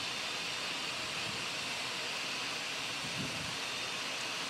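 Steady, even hiss of background noise in the cockpit of a Cessna Citation XLS jet climbing after takeoff.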